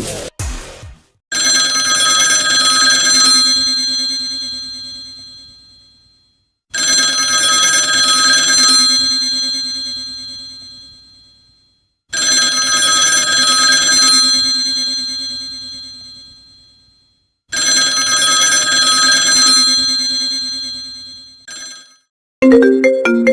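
Ringtone of a ringing telephone bell: four rings about five and a half seconds apart, each held for about two seconds and then fading away. Near the end a different ringtone with short stepping notes begins.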